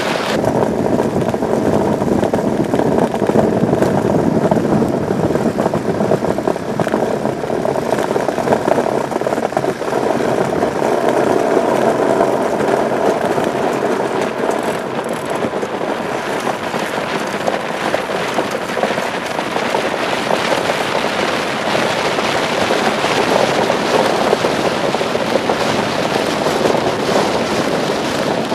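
Iceboat's steel runner skating fast over hard, clear pond ice: a steady, grainy rumble that spreads higher about halfway through.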